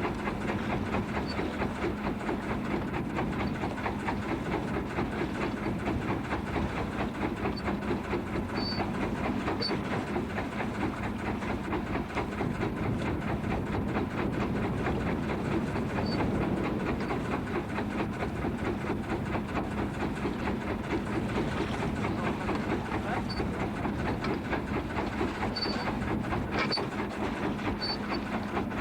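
A boat engine running steadily with a rapid, even pulse and a constant low hum. Faint short high squeaks come through now and then.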